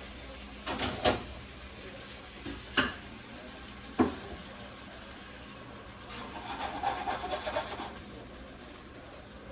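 Kitchen handling sounds: three sharp knocks a second or so apart, then about two seconds of scraping and rubbing.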